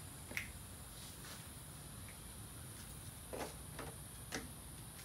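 Faint scattered clicks, about five, of small die-cast toy monster trucks being handled and set onto a plastic Hot Wheels track, over a steady faint hiss.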